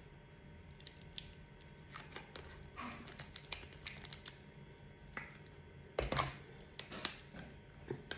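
Light, irregular clicks and taps of kitchen work, with a few louder knocks about six to seven seconds in.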